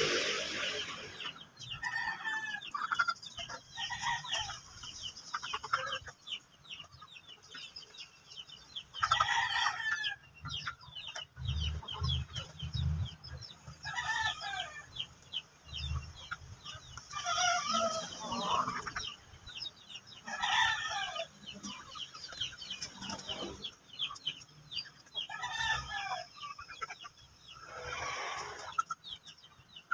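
Backyard chickens clucking, with roosters crowing, a call every few seconds. A few low thumps come around the middle.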